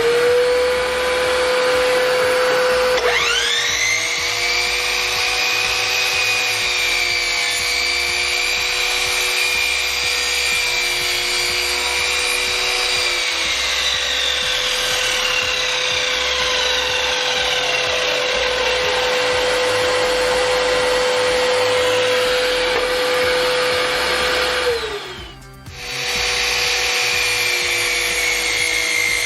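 SIP 12-inch sliding compound mitre saw's 2000 W belt-driven motor running at speed with a steady whine while the blade cuts timber, the upper tones shifting as the cut goes on. Near the end the sound drops out for a moment and then the saw runs on again.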